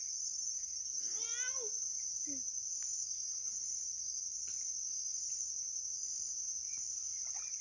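Insects chirring in a steady, high-pitched, continuous trill.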